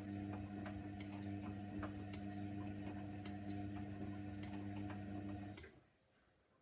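Hoover Nextra washing machine running with a steady electric hum and rapid, regular ticking, about four ticks a second; both cut off abruptly near the end.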